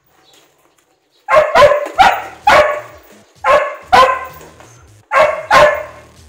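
A dog barking: about eight loud, short barks in pairs and small groups, starting just over a second in.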